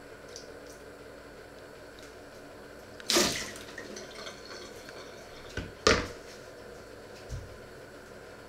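A short burst of water from a kitchen tap splashing in the sink about three seconds in, then two sharp knocks of kitchenware in the sink a little before six seconds, over a steady low hum.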